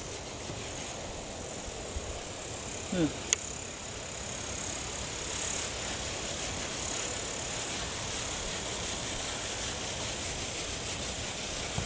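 A cloth sock wet with insect repellent rubbing back and forth over an oxidized, yellowed plastic headlight lens, a steady scrubbing noise as the haze is worked off. A single short click about three seconds in.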